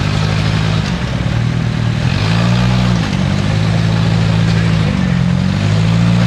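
Lifted Suzuki Samurai's engine working under load as it crawls over rocks, its pitch dipping and picking up again with the throttle about a second in, at around three seconds and near the five-second mark.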